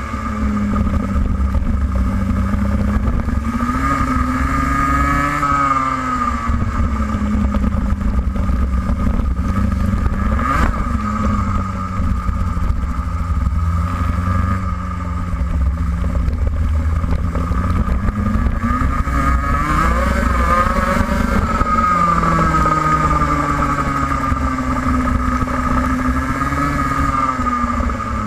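Racing kart's engine at racing speed, its pitch repeatedly climbing as it accelerates and dropping off when it lifts for corners. There is one sharp click about ten seconds in.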